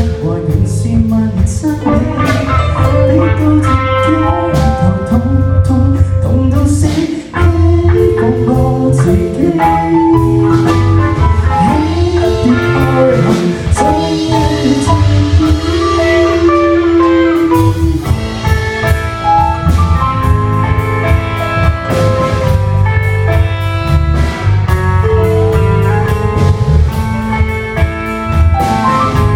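Live band playing a song, with drums keeping a steady beat under a pitched melody line that bends up and down; the sound drops out briefly about seven seconds in.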